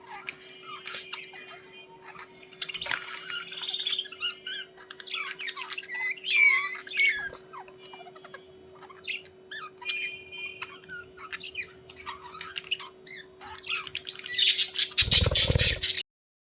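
Budgerigars chattering: a stream of short chirps, squawks and warbling glides over a faint steady hum. Near the end a loud, dense rush of noise breaks in and then cuts off abruptly.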